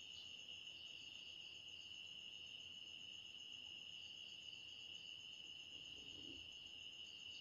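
Near silence, with a faint, steady, high-pitched insect trill, like crickets, in the background.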